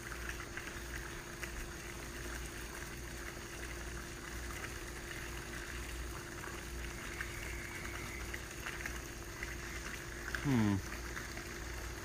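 Microwave oven running with a steady hum, with faint crackling from the iPhone 6 burning inside it.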